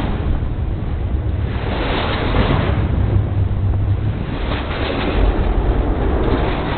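A train passing directly over a camera on the track bed: a loud, steady rumble and rushing noise that swells and eases in waves, with wind buffeting the microphone.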